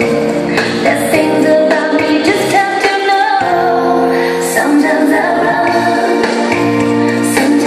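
Latin dance music with a singing voice, played over loudspeakers in a large hall, continuous and steady in loudness.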